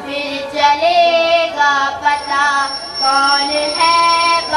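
A schoolgirl singing an Urdu naat solo into microphones, unaccompanied, drawing out the refrain's closing words in long, wavering held notes.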